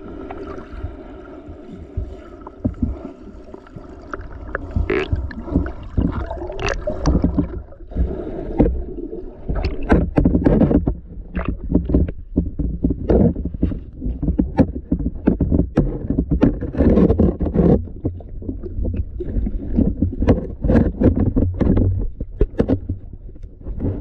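Muffled underwater sound picked up by a submerged camera: a steady low rumble of moving water, with many sharp clicks and knocks that come thicker from about eight seconds in.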